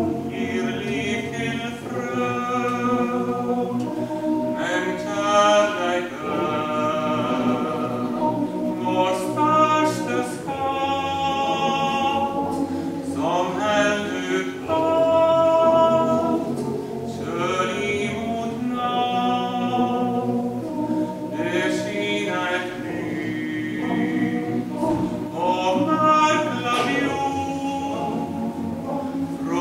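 Male voice choir singing in sustained, changing chords, in the reverberant space of a church.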